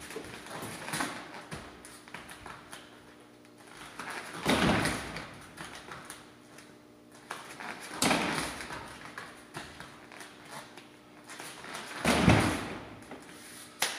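Three meia lua de compasso spinning kicks striking a freestanding training dummy, each a loud thud, about four seconds apart, the last the loudest.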